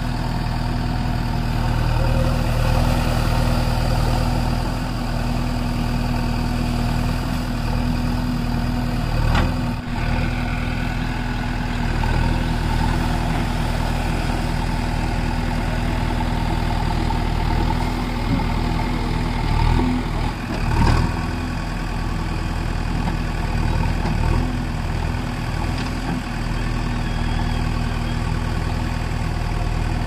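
JCB 3DX backhoe loader's diesel engine running steadily while the backhoe arm digs, with a few short knocks about a third of the way in and again about two-thirds through.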